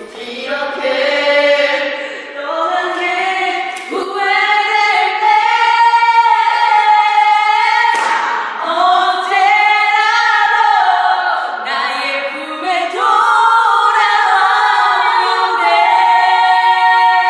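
Several women singing together a cappella, with long held notes that slide up and down.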